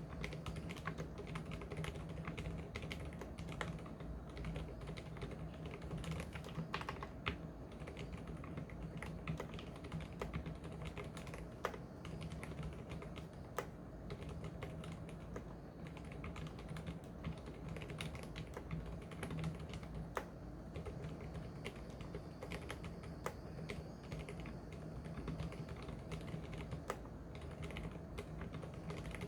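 Typing on an Mstone mechanical keyboard with silent milky 45 g linear switches: a continuous, uneven stream of keystrokes, a few strokes louder than the rest.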